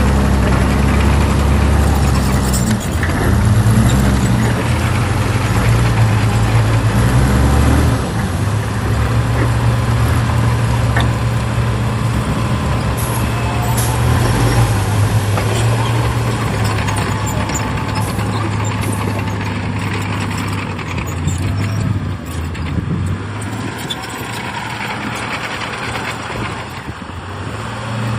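Heavy diesel earthmoving machinery running on a work site, the engine note stepping up and down with changing load through the first half and easing off in the second half.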